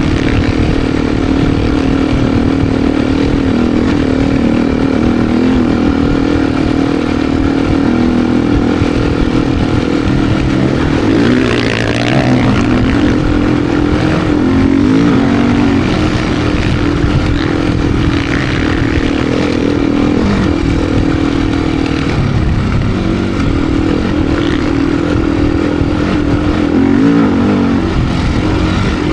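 Beta RR390 X-Pro's four-stroke single-cylinder enduro engine running under load in deep sand, with constant throttle changes that make the pitch rise and fall, most clearly about twelve seconds in and again near the end. A low rumble of wind and chassis noise runs under it.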